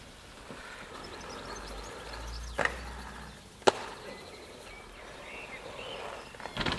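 Inline skate wheels rolling on asphalt, with sharp clacks of the skates striking and landing during a trick on a wooden box; the loudest clack comes a little past halfway, with a quick cluster near the end.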